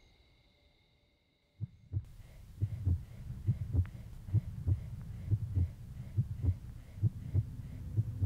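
Near silence, then about one and a half seconds in a low double-thump heartbeat starts, beating about once a second and slowly growing louder.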